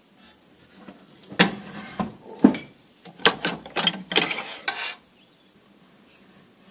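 A thin steel rod clanking and scraping against a metal frame as it is fitted into place, in a run of metallic knocks that lasts about three and a half seconds.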